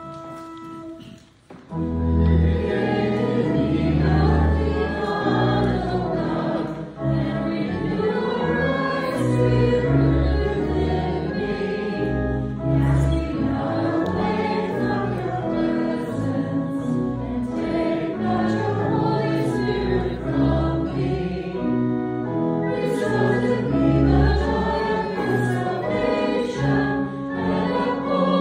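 Congregation singing a hymn with organ accompaniment. The singing starts about two seconds in, after a few held organ chords and a short pause.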